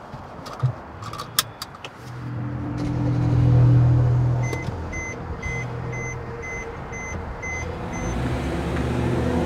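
Inside a car: a few sharp clicks, then the engine starting and running with a steady low hum. A dashboard warning chime beeps about eight times, roughly twice a second, partway through. A low music drone begins to rise near the end.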